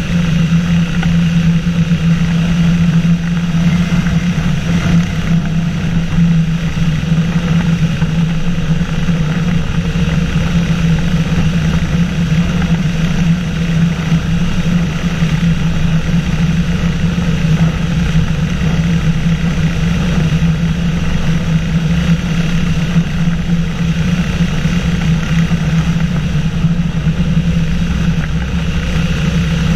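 Microlight flying boat's engine and pusher propeller in flight, a loud steady drone that holds at one pitch.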